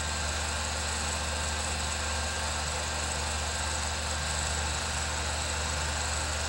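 An 8mm film projector running: a steady low mechanical hum with an even hiss over it.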